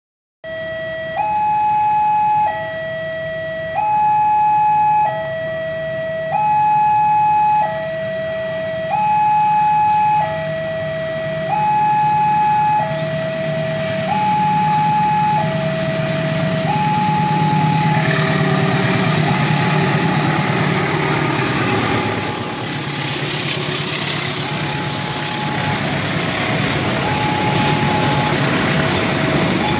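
Railway level-crossing warning alarm sounding a two-tone high-low signal, switching pitch about every 1.3 s. From about halfway through, a Pertamina fuel tanker train approaches and runs past, and its diesel locomotive and rolling tank wagons build into a loud rumble that mostly covers the alarm.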